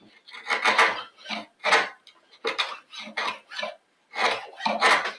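Kirschen 6mm mortise chisel pared by hand along the bottom of a narrow housing (dado) in softwood, a quick, uneven run of scraping strokes, roughly two a second, as waste is cut out of the groove.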